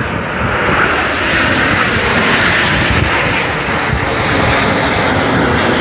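Jet engines of a formation of small aerobatic jets flying overhead, a steady rushing noise that swells slightly about two seconds in.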